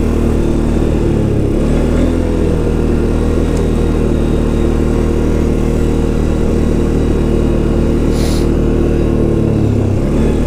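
Four-wheel-drive ATV engine running at a steady low speed, its pitch dipping slightly twice. There is a short hiss about eight seconds in.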